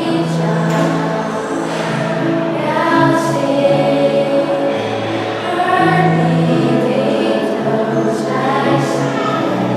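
Choir singing a slow song in harmony, holding long notes.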